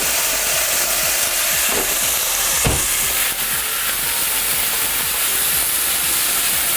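Chopped onion and green pepper sizzling in hot olive oil in a frying pan, a steady hiss, with a single knock about two and a half seconds in.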